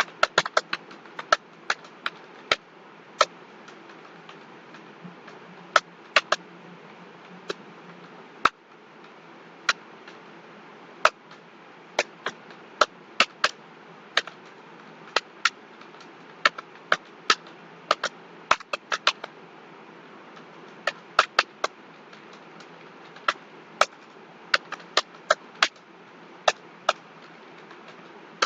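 Computer keyboard keys pressed one at a time at an irregular, unhurried pace: sharp single clicks, now and then two close together, over a steady low hiss.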